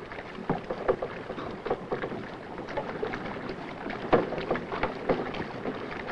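Irregular knocks, thumps and clatter on a boat as people move about and climb aboard, over a faint steady hiss.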